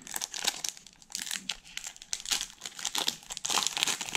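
Foil wrapper of a Pokémon TCG booster pack crinkling in the hands as it is worked open: a dense, irregular run of sharp crackles.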